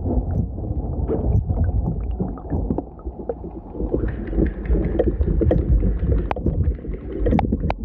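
Muffled water sloshing and gurgling around a phone in the water from a capsized RC boat, with a rough low rumble and many scattered knocks. It grows a little fuller about halfway through.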